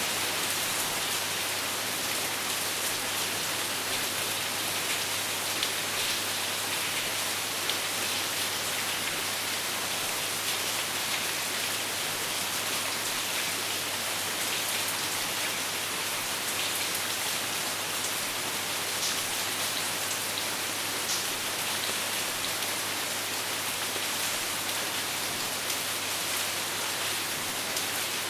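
Steady rain falling: an even, dense hiss with scattered sharper drop hits, over a low steady hum.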